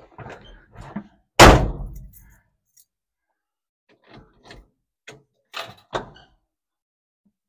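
A heavy thunk from the 1971 GMC pickup's steel cab about a second and a half in, ringing briefly. Scattered lighter knocks and handling noises follow, with a sharper knock near six seconds.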